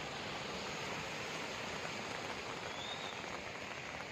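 Steady rushing hiss of floodwater running fast across a road, with a short faint high chirp about three seconds in.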